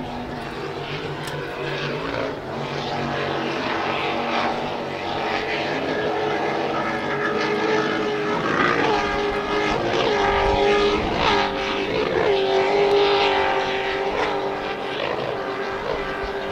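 Offshore racing powerboat's engines running at high speed, growing louder to a peak about three-quarters of the way through and then fading as it passes, the engine pitch dipping and recovering several times.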